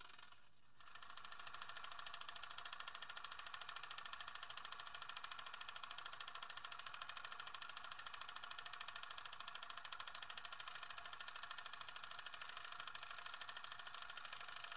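Film projector running: a fast, steady mechanical clatter, thin and high, that dips briefly about half a second in.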